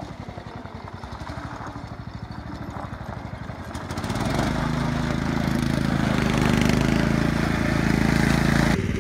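Lawn mower's small engine idling with an even pulse, then revving up about four seconds in and holding a steady, higher speed.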